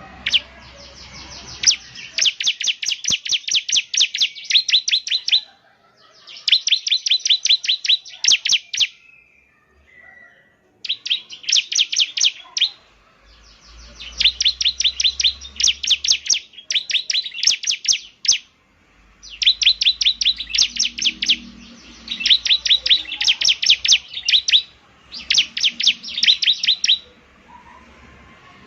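Bar-winged prinia (ciblek) singing: fast runs of sharp, high, repeated chips, each run one to a few seconds long, broken by short pauses.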